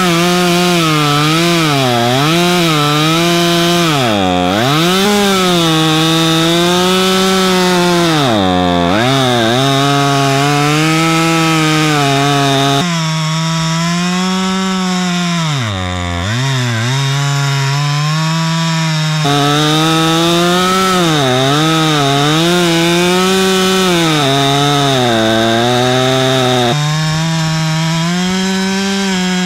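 Husqvarna T540 XP Mark III two-stroke top-handle chainsaw cutting through a thick log at full throttle. The engine note sags repeatedly as the chain bites into the wood under load, then climbs back up, with a few abrupt jumps in tone.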